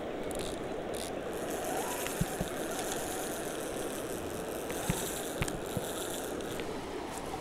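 A few sharp clicks and rattles from a small inline fishing reel and rod being handled while a crucian carp is played in, over a steady background noise.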